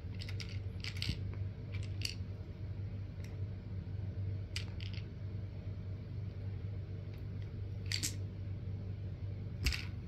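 Small plastic dice clicking as they are picked up and set down on a plastic toy monster truck: a scattering of light, irregular clicks over a steady low hum.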